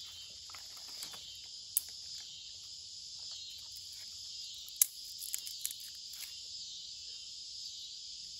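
A steady insect chorus in the trees, swelling and fading slowly, with a few sharp snaps of kindling sticks being broken and laid on a small campfire. The loudest snaps come about two seconds in and just before five seconds, followed by a few quicker, softer ones.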